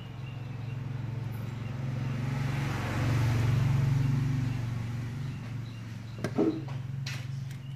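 A motor vehicle passing outside, its engine and tyre noise growing louder to a peak midway and fading again over a steady low hum. A light knock sounds near the end.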